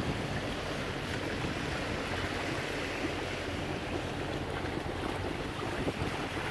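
Steady rush of water along the hull of a sailboat under way, with some wind.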